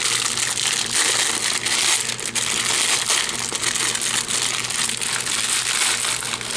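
Plastic wrappers of instant ramen packs crinkling continuously as they are handled and opened.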